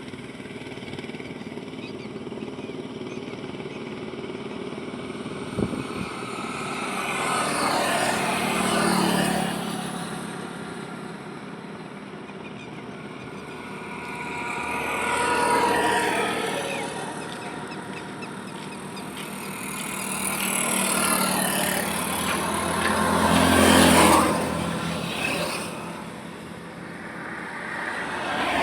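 Highway traffic: vehicles passing one after another over a steady road hum, each pass swelling and fading over a few seconds, the loudest about 24 seconds in. A short knock about six seconds in.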